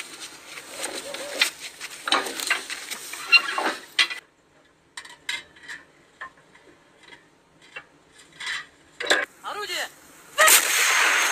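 Metal clanks and rattles of an artillery shell being handled and loaded into a gun's breech, with brief voices. A loud burst of noise starts about ten seconds in and carries on.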